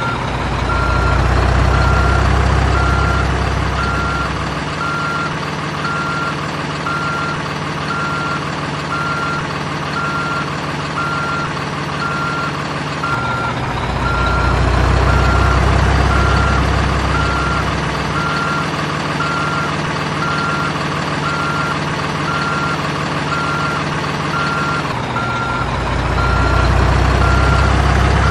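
Truck reversing alarm beeping steadily, about one and a half beeps a second, over a running diesel-truck engine sound. The engine's deep rumble swells and drops back three times, shifting abruptly about halfway and again near the end, like a looping sound recording.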